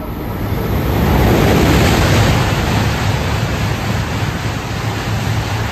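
H5 series Shinkansen coupled with an E6 series Komachi passing through the station at high speed without stopping: a loud rushing noise of air and wheels on rail that swells within the first two seconds and holds as the cars stream by.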